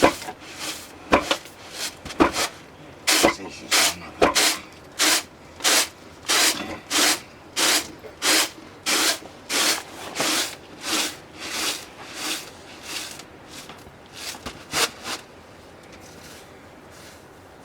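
Stone hand mill grinding barley: evenly spaced rasping strokes of stone rubbing on stone and grain, about one and a half a second. The strokes grow fainter and stop a couple of seconds before the end.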